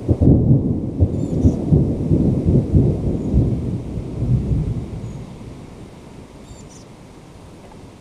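A thunderclap: a sudden crack followed by a long, crackling low rumble that slowly fades away over about five seconds.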